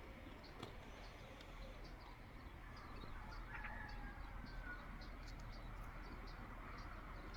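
Faint outdoor ambience. High, short chirps repeat a few times a second throughout, with a brief call near the middle, over a low rumble of wind.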